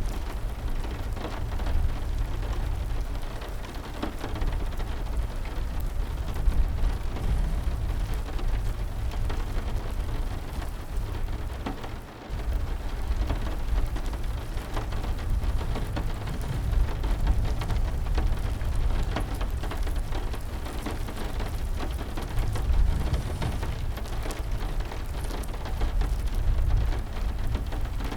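Steady heavy rain: a dense patter of drops with a low rumble underneath and many small ticks, dipping briefly about twelve seconds in.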